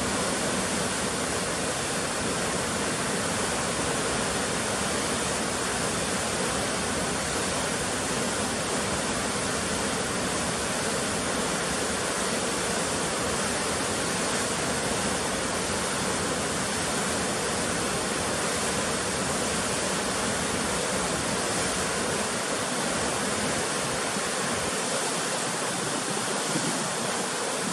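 Waterfall pouring into a churning plunge pool: a steady, unbroken rush of white water.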